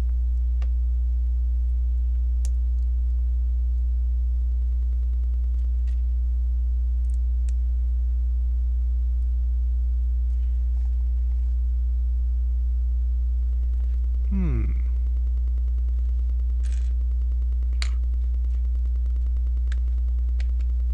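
Steady low electrical mains hum with a string of even overtones, with sparse faint clicks of plastic LEGO pieces being handled. A short murmur falling in pitch comes about two-thirds of the way through.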